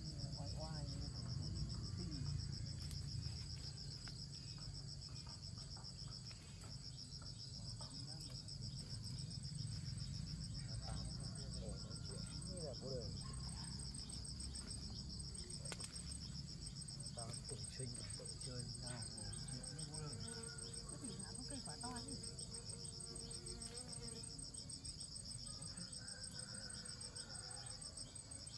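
A chorus of insects trilling steadily in a high, rapidly pulsing drone, over a low rumble, with scattered faint chirps.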